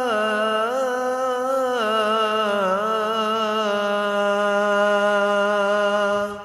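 A man's solo voice calling the adhan, holding one long ornamented note on the end of 'hayya ʿala s-salah'. The pitch wavers and steps down twice before the note stops near the end, leaving a fading echo in the prayer hall.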